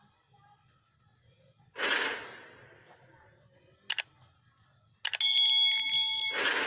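A string of short edited sound effects: a breathy rush of noise that fades over about a second, a quick double click, then a click into a steady ringing tone lasting about a second, and another breathy rush near the end.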